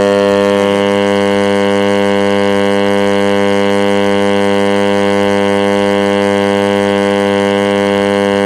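Zebronics home theatre speaker giving a loud, steady buzzing hum, a vibration-like sound in place of any audio, that the volume control does not change. The repairer takes a burnt 2200 µF 25 V filter capacitor inside to be the likely cause.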